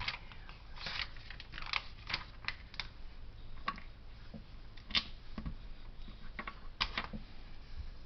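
Small plastic Lego bricks clicking and rattling as they are picked through and handled: a quick run of irregular clicks, then a few single clicks further apart.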